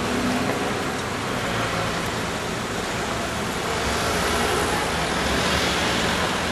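Street traffic noise with cars driving by. It grows louder about four seconds in as a car passes close.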